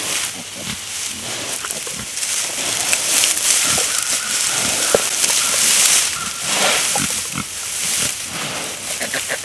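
Sow grunting, with dry straw rustling and crunching as it is handled and piled around her; the rustling is loudest in the middle stretch.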